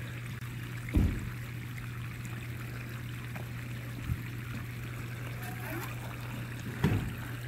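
Water trickling and pouring steadily from the end of a sump pump discharge pipe into a street gutter, the sign that the pump is sending the pit's water all the way out to the curb. Two soft low thumps come about a second in and near the end.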